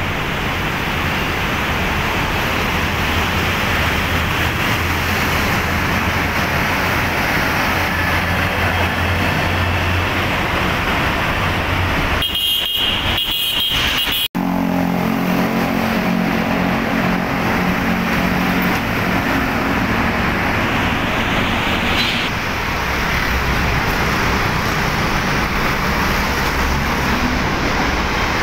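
Steady street traffic: engines and tyres of passing trucks, cars and motorcycles. After a brief drop-out near the middle, a heavy vehicle's engine drones close by for several seconds.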